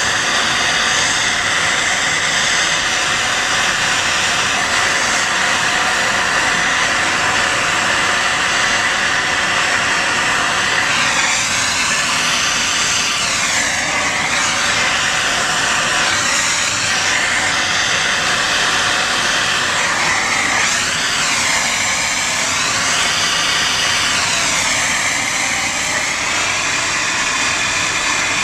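MAPP gas torch flame hissing steadily as it heats a copper pipe tee for soldering. Its tone wavers now and then from about ten seconds in.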